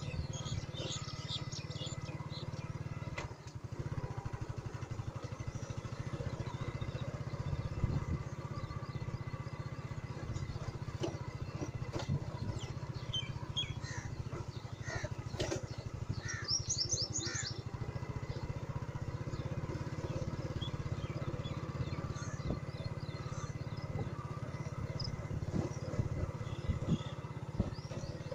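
A small engine running steadily with an even low drone. Birds chirp and tweet over it, in a burst near the start and a busier run around the middle.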